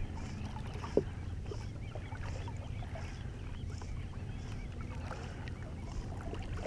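Muffled, steady rush of moving water in a strong tidal current, with faint bubbly chirps and a single knock about a second in.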